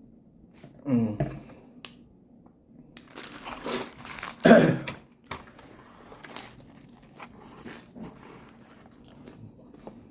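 Close-up eating sounds: crinkling, biting and chewing into a meatball sandwich, with the loudest crunchy rustle about four and a half seconds in and a short voiced hum about a second in.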